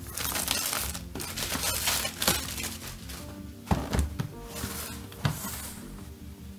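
Plastic packaging film crinkling and crackling as it is stripped off a cardboard box, then a few dull thunks in the second half as the box is picked up and set back down.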